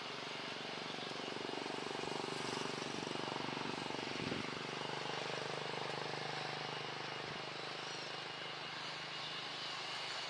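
Jet airliner engines running, a steady rumble and whine that swells slightly and eases off again, with a brief thump about four seconds in.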